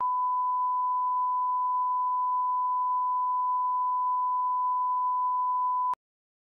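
Steady 1 kHz test tone, the reference tone that goes with TV colour bars, held for about six seconds and then cutting off suddenly with a short click.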